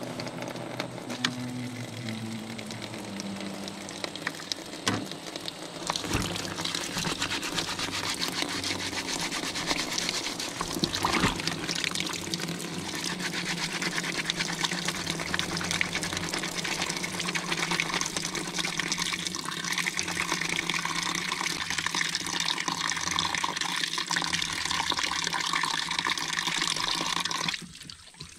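Water running from the tap of a plastic water container into a collapsible plastic bucket, with hands rubbing and splashing in the water. The running water stops near the end.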